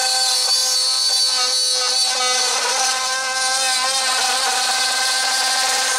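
Cordless Dremel rotary tool running steadily with a high whine, its pitch wavering slightly as it drills a hole into a plastic model kit.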